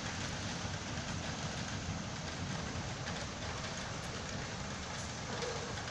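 Steady rain noise during a thunderstorm, an even hiss over a low, fluttering rumble.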